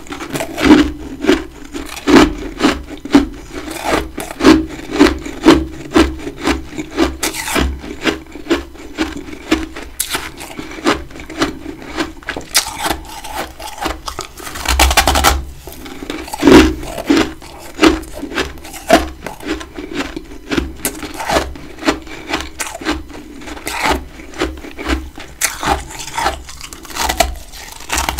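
Close-miked chewing of big chunks of freezer frost: crisp, crackly crunching in a steady chewing rhythm of about two chews a second.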